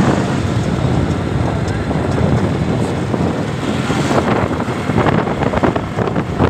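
A 2016 Honda vehicle on the move, its engine and road noise mixed with wind buffeting the microphone; a little gustier about two-thirds of the way in.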